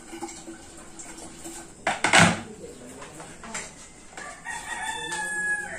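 A rooster crows near the end, one long held call lasting about a second and a half. A brief loud, noisy burst comes about two seconds in.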